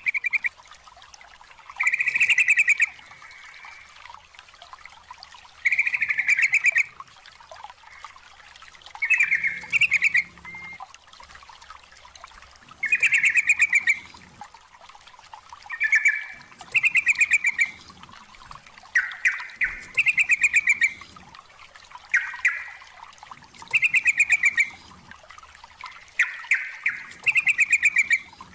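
Yellow-vented bulbul singing, about a dozen short bubbly phrases of rapid repeated notes, one every two to three seconds.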